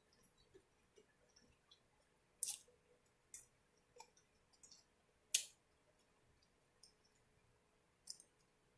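Mouth sounds of eating: a handful of short, crisp crackles and clicks while chewing, spaced about a second apart, the loudest about five seconds in.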